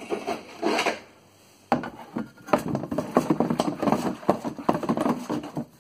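White vinegar being poured into a plastic tub over a steel saw blade, splashing steadily from about two seconds in until near the end, to fill a vinegar-and-salt rust-removal soak.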